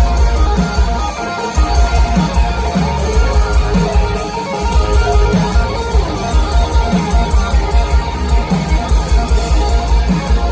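Live hard rock band playing loud: distorted electric guitars over heavy drums and bass, heard from within the audience.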